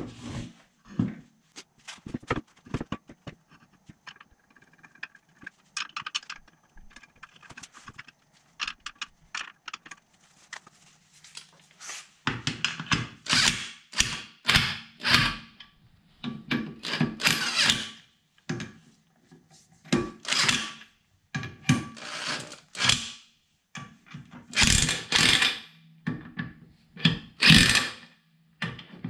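Clinks and knocks of lug nuts and a steel wheel being handled, then a corded electric impact wrench with a brushed motor firing in about six short bursts, a second or two each, spinning and hammering lug nuts on.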